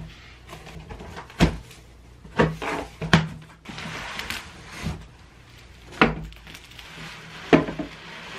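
Large cardboard shipping box being handled and opened: four sharp thumps and knocks as it is set down and worked open, with cardboard scraping and rustling between them, and bubble wrap crinkling near the end.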